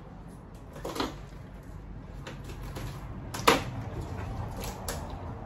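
Handling clatter of a clear plastic takeaway container and a fork while eating: a sharp click about a second in, a louder knock about three and a half seconds in, and a few faint ticks after it.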